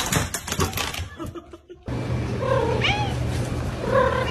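A dog pushing through a pet-door flap, making a quick run of clattering knocks. Then a cat meows twice, about a second apart, over a steady low hum.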